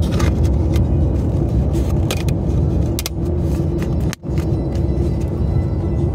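Steady low rumble of road and engine noise heard inside a moving car's cabin, with a few light clicks from the phone being handled. The sound cuts out for an instant about four seconds in.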